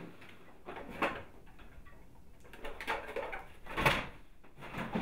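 Toys and game boxes being handled and put into plastic storage tubs: a few separate knocks and rattles, the sharpest about four seconds in.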